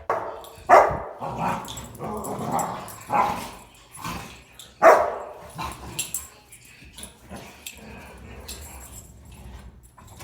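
Rottweilers barking and growling in rough play: several sharp barks, the loudest about a second in and again about five seconds in, with lower growls between, growing quieter in the second half.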